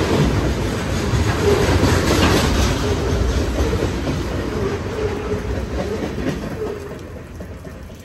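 Freight train rolling past at close range, its wheels rumbling on the rails. The sound fades away as the last cars go by near the end.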